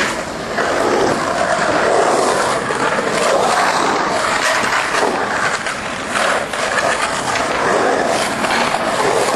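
Skateboard wheels rolling and carving around a concrete pool: a continuous rumble that rises and falls, with a few faint clicks.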